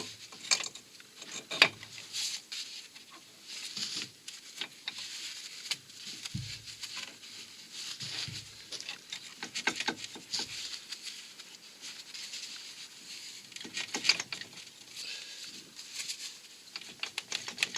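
Irregular light clicks and knocks of metal parts and hand tools being handled in scattered clusters, as the front driveshaft is refitted into the wheel hub.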